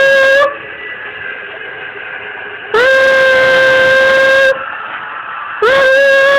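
A loud, steady horn-like tone sounded in long blasts of about two seconds, each starting with a quick upward scoop in pitch. One blast ends about half a second in, a second sounds in the middle, and a third starts near the end. This is the kind of sound that sets a dog howling.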